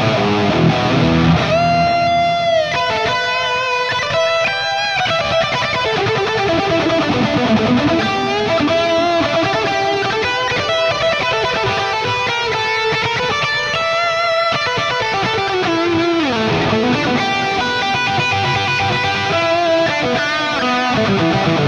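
Electric guitar lead line from a Les Paul-style guitar with PAF humbuckers, played through a Fractal Audio FM9 amp modeller with a very wet multi-tap delay modelled on the Keeley Halo pedal. Held notes and string bends, with the delay repeats trailing behind them.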